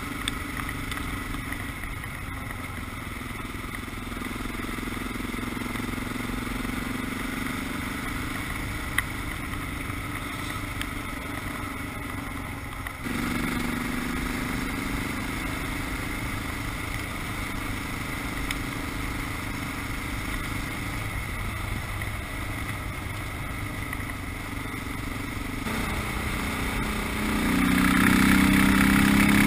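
Dual-sport motorcycle engine running at road speed, its note rising and falling with the throttle, with wind noise underneath. The sound changes abruptly twice along the way, and the engine grows louder and higher near the end.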